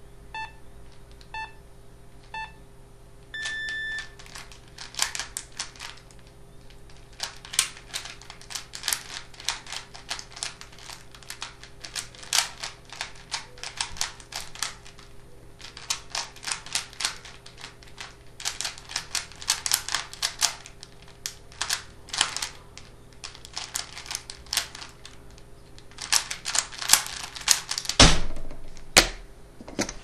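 Three short electronic beeps a second apart, then a longer beep. After that comes about 24 seconds of rapid, irregular plastic clicking and clattering from a 3x3 Rubik's cube being turned at speed, ending in two loud knocks near the end.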